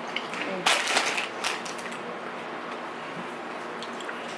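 Shopping-haul packaging crinkling as it is handled: a crackly burst for about a second near the start, then a few fainter rustles.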